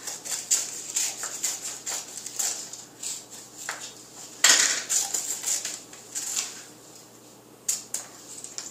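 Small children's scissors snipping through coloured paper: irregular sharp snips, roughly one or two a second, with the loudest about halfway through.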